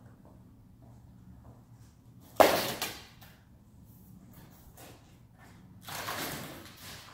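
A large white sheet being handled by hand: a sharp slap about two and a half seconds in that dies away within a second, then a softer, longer swish as the sheet is flexed and laid down near the end.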